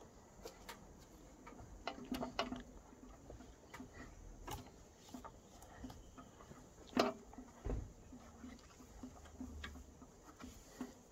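Scattered light clicks and taps from handling, with a sharper knock about seven seconds in and a faint low rumble now and then.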